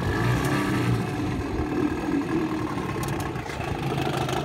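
1994 Evinrude 4 hp Deluxe two-cylinder two-stroke outboard running steadily at idle, freshly started.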